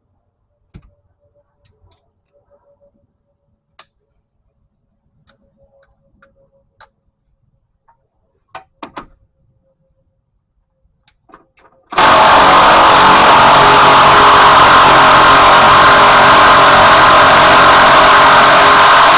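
A few faint clicks of hand tools, then about twelve seconds in a loud machine motor starts abruptly and runs steadily.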